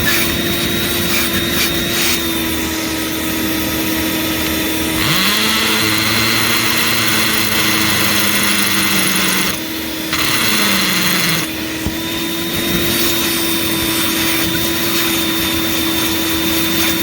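Electric power tools running: one motor hums steadily throughout. About five seconds in, a hammer drill spins up and drills into concrete with a harsh rattle for about six seconds, then winds down.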